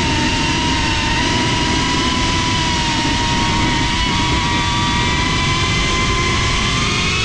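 FPV quadcopter's brushless motors and propellers whining steadily in flight, picked up by the onboard GoPro with a rush of wind and vibration underneath; the pitch holds fairly even, drifting only slightly.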